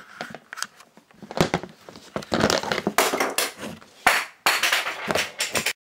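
Handling noise on the camera's built-in microphone: a dense run of knocks, rubs and scrapes as the camera is moved against clothing and the body. Loud, and it cuts off suddenly near the end.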